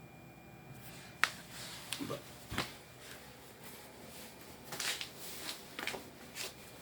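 Handling noise on a workbench: a run of sharp clicks and knocks with light rustling between them, the loudest about a second in.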